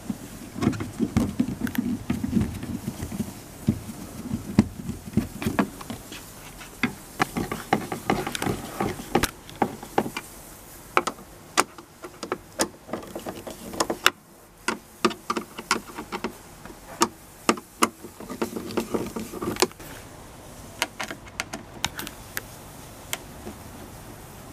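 Hand tools, screws and plastic trim being handled on a car's inside door panel: irregular clicks, taps and small rattles, thinning out after about twenty seconds.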